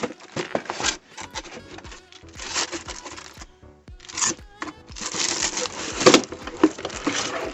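A cardboard box being opened by hand, its flaps and packaging rustling and crinkling in uneven bursts of scraping and clicks, over background music.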